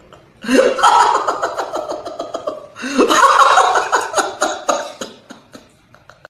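A man laughing and then wailing in exaggerated mock sobs: two long outbursts, each opening on a rising cry and breaking into quick pulses.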